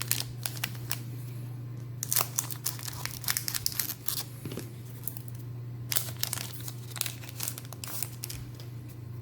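Foil booster pack of trading cards crinkling and being torn open, in two spells of crackling about two seconds and six seconds in, over a steady low hum.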